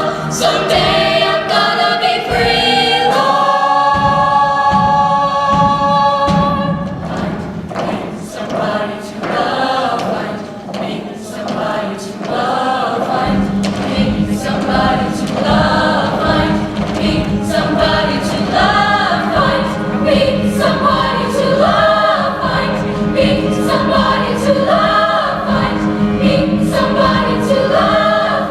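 Show choir singing in harmony with instrumental backing. A sustained chord is held for the first few seconds, then the group moves into a rhythmic passage over steady percussion, and a low bass part comes in about halfway through.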